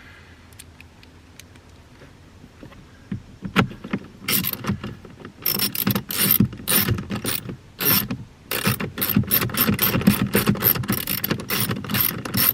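Ratchet wrench clicking as it runs in the 7 mm bolts of a cabin air filter housing. A few scattered clicks come first, then from about halfway through a rapid run of about five clicks a second.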